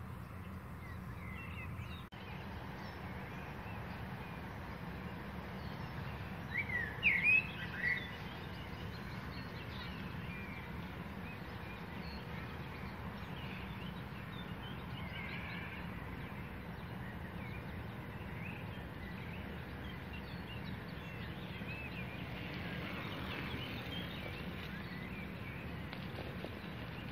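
Outdoor ambience of steady low background noise with small birds chirping; a short run of louder chirps about seven seconds in is the loudest sound.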